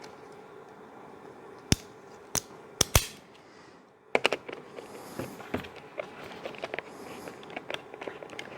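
Leatherman multi-tool being opened to its screwdriver, four sharp clicks close together, then a run of small clicks and scraping as the screwdriver turns a screw into the trimmer's guard.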